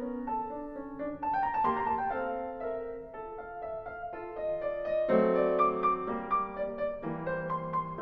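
Background piano music: a gentle melody over sustained chords.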